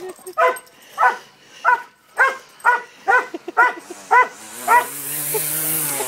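A dog barking rapidly and repeatedly, about two sharp barks a second, at a weed eater. Near the end the barking stops as the weed eater's motor runs up with a steady hum and a high whirring hiss.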